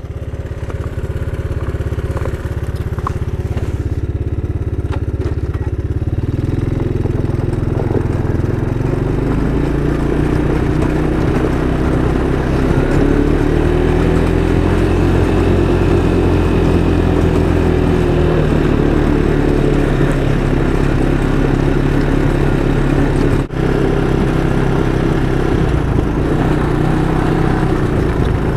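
Honda ATV engine running under way, its note stepping up about six seconds in and then rising and easing with the throttle. There is a brief break in the engine sound about 23 seconds in.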